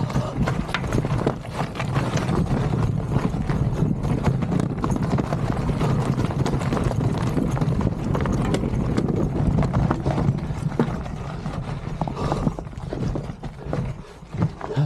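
Polygon Siskiu mountain bike rolling fast over loose rock: the tyres crunch and knock over stones and the bike rattles, over a steady low rumble. It grows quieter near the end as the bike slows.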